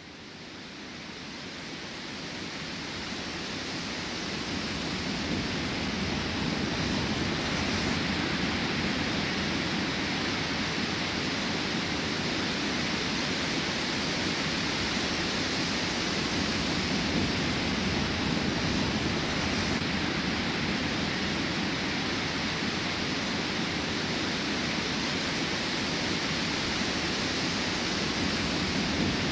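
Steady rushing of water, fading in over the first few seconds and then holding level.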